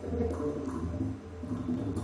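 Music with held low tones that swell and fade.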